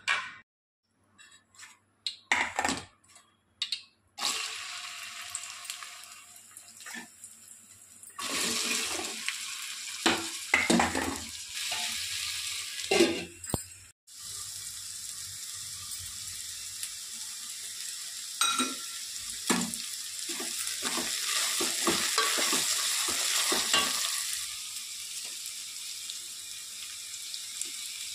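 Chopped okra sizzling as it fries in oil in a metal pan, stirred with a spoon that scrapes across the pan again and again. A few scattered clicks come first.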